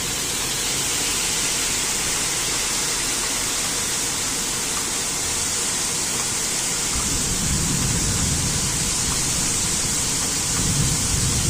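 Heavy rain pouring steadily in a thunderstorm, a loud even hiss. About halfway through a low rumble comes in under it and grows louder near the end.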